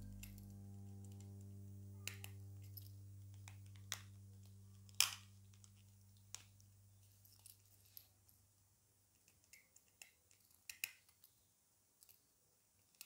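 Background music fading out over the first several seconds, with scattered sharp little clicks and taps as a precision screwdriver works the metal hinge screw of an eyeglass frame; the loudest click comes about five seconds in.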